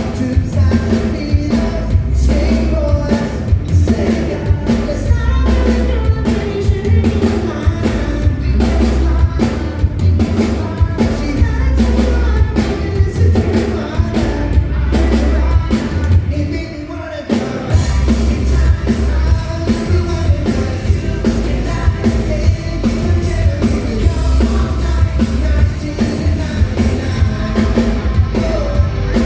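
A band and a singer performing a pop-rock song with a steady drum beat. About two-thirds of the way through, the music drops briefly, then comes back with busier cymbals.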